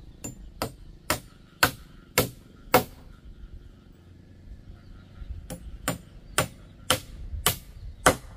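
Hammer blows, about two a second, in two runs of six with a pause of a couple of seconds between them.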